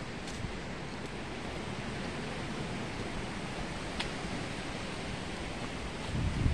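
Steady rushing noise with a few faint ticks and a low thump near the end.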